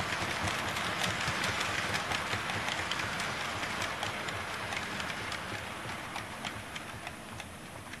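KATO N-gauge 205 series model electric trains running on the layout track: a steady rolling whir with rapid small clicks of the wheels over the rail joints. The noise fades gradually as the trains slow into the station.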